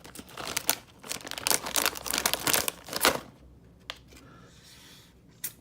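Calbee baseball card packet being torn open and crinkled by hand, an irregular crackling for about three seconds, then quieter with a couple of small clicks.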